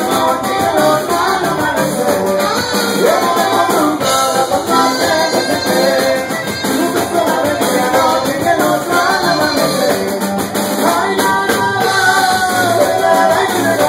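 Live norteño band playing a huapango: saxophone and sung vocals over guitar and drums.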